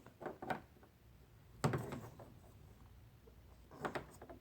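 Light knocks and clicks of plastic toy parts being handled, with one sharper knock about a second and a half in and a few small clicks near the end.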